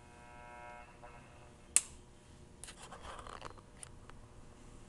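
Faint noises of an RCA 262 receiver being tuned: a short steady whistle-like tone in the first second, a single sharp click a little under two seconds in, then a scratchy rustle around three seconds with a few small ticks.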